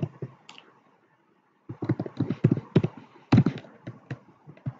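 Typing on a computer keyboard: irregular key clicks, a few at first, a short pause, then a quick run of keystrokes.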